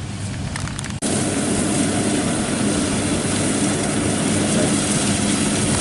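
Rice combine harvester running steadily, its diesel engine droning under the rushing noise of the cutting and threshing machinery. About a second in, the sound cuts out for an instant and comes back louder and brighter.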